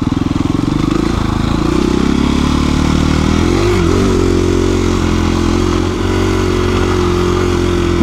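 KTM 350 EXC-F's single-cylinder four-stroke engine running under way on a dirt trail. The note is lower and pulsing for the first second or so, then rises a little and holds steady.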